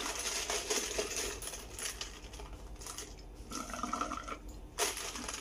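Milk tea being slurped through a straw from a plastic cup, in two noisy sucking spells, the second with a brief steady squeaky note.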